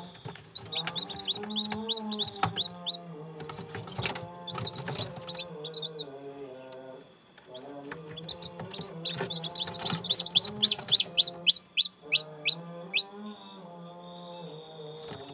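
Newly hatched chicks peeping in an egg incubator: runs of quick, high, falling peeps, several a second, loudest in a long run after the middle. Background music plays underneath.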